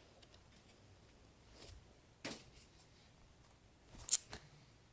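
A folded paper airplane is thrown: a faint paper rustle about two seconds in, then one sharp tap about four seconds in as it lands after a very short flight.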